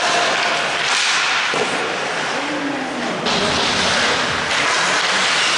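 Ice hockey rink sound during play: a steady scraping hiss of skate blades on the ice, turning louder about three seconds in, with faint distant calls from players.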